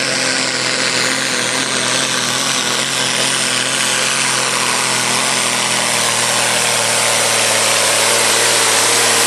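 Diesel engine of a 3.6-tonne supersport-class pulling tractor running flat out under load as it drags the weight sled, pouring out black smoke. The note is steady and loud, with a high whine whose pitch sinks slowly as the pull goes on.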